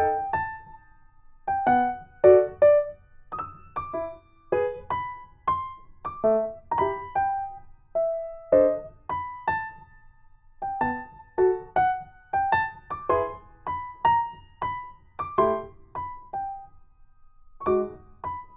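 Background music: a light piano or electric piano melody of separate plucked notes, a few a second.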